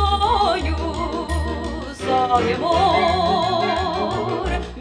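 Orchestral light music from a 1958 recording with no words sung. A melody of long notes wavers with vibrato over a steady, pulsing bass beat.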